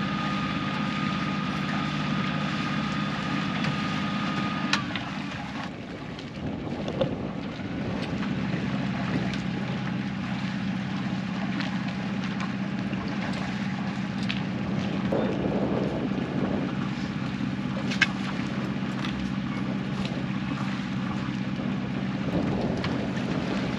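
Small sailboat's inboard engine running steadily as the boat motors along, with wind noise on the microphone. A thin steady high tone stops with a click about five seconds in, and there is another sharp click later.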